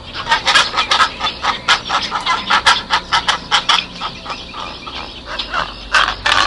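Domestic fowl calling in quick, short, sharp calls, several a second, starting abruptly.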